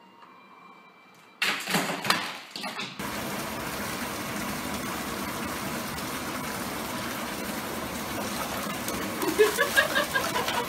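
Steady rush of water running into a bathtub. Near the end, short high rising-and-falling cries and splashing as a kitten falls into the water.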